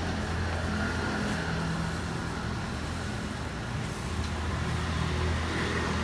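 Steady low hum and hiss of street-stall background noise, with no distinct event standing out.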